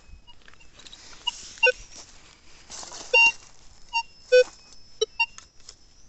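Minelab Vanquish metal detector giving several short target beeps as its coil is swept over a freshly dug hole, re-checking the spot for the signal after a nut was dug out. Soft rustling runs between the beeps.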